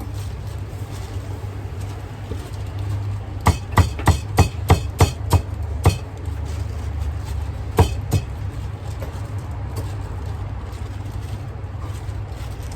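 A steady low hum underneath a run of about eight sharp knocks, roughly three a second, about three and a half seconds in, followed by two more knocks a couple of seconds later.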